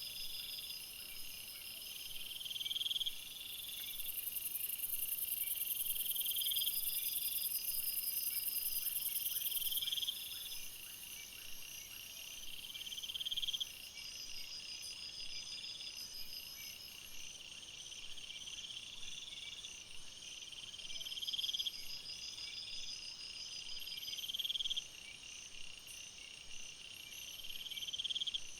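Jungle ambience of calling insects and frogs: a pulsed call that swells and repeats every two to three seconds over a steady high trilling, with a loud, very high insect buzz for about six seconds near the start.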